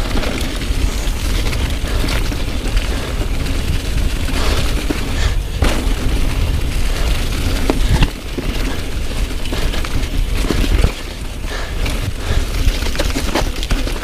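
Wind buffeting the microphone of a camera on a mountain bike riding fast downhill, mixed with the tyres rolling over leaf-covered dirt and rocks and sharp knocks and rattles from the bike over bumps.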